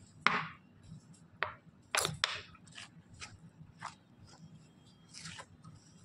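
A hand rubbing oil into dry flour and semolina in a steel bowl, working it until it holds when squeezed. Irregular scrapes and sharp taps of fingers against the bowl, the loudest about a quarter second in and two around the two-second mark, with a softer hissing rub of flour near the end.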